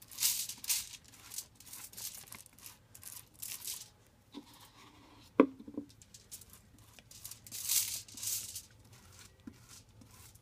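A tint brush swishing dye through wet hair spread on aluminium foil in a series of short strokes, with the foil crinkling under the hand. There is one sharp tap about five and a half seconds in.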